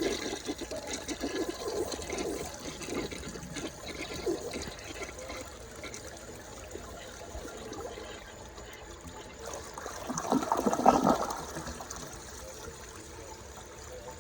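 1968 Rockport toilet flushing with a grocery bag in the bowl. Water rushes loudly at first, then eases to a lower steady rush, with a second loud burst of water about ten seconds in before it settles to a trickle. The bag goes down.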